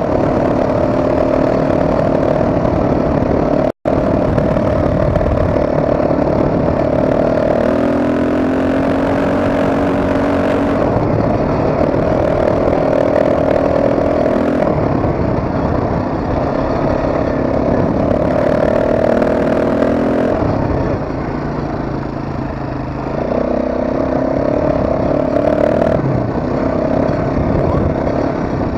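ATV engine running on a ride, its pitch rising and falling with the throttle. The sound cuts out for an instant about four seconds in.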